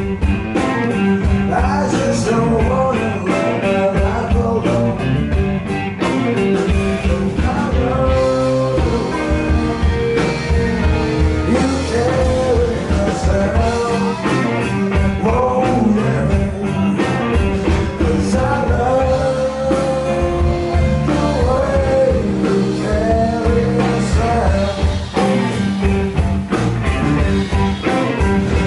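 Live blues-rock band playing: electric guitars, bass guitar and a drum kit, with a sung lead vocal on top.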